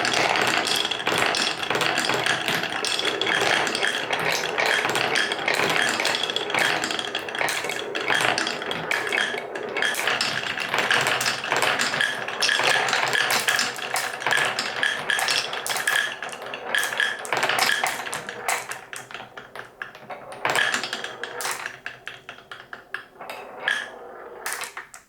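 Many small balls rolling and clacking down a wooden marble run: a dense clatter of clicks and knocks that thins to scattered clicks over the last several seconds, then stops.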